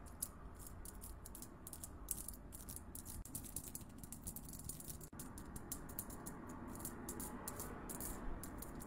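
Thin tools picking and scraping at stick-on rhinestones on a face, close to the microphone: rapid, irregular faint clicks and light rattling.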